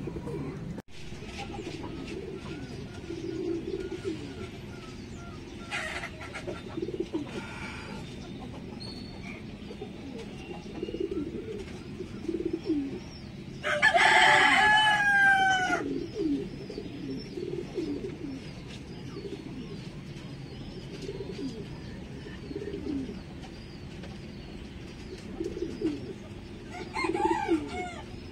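Pigeons cooing over and over, with a rooster crowing once, loudly, about halfway through, and a shorter chicken call near the end.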